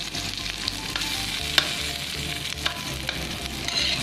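Garlic and diced pork sizzling in rendered pork fat in a wok, with a metal spatula scraping and clacking against the pan as it is stirred. One clack about one and a half seconds in is louder than the rest.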